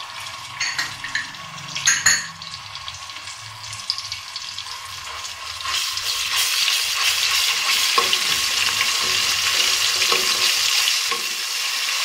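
Browned onions, cumin seeds and garlic sizzling in hot oil in a stainless steel pot while a perforated metal spoon stirs them. The sizzle grows louder about halfway through, with a couple of sharp clinks near two seconds in.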